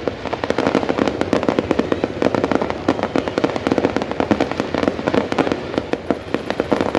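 New Year fireworks display going off in a dense, continuous barrage of rapid bangs and crackles.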